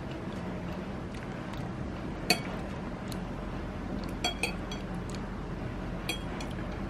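Metal cutlery clinking against a ceramic bowl during eating: a handful of sharp clinks, the loudest about two seconds in, a quick pair around four seconds and another near six seconds, over a faint steady room hum.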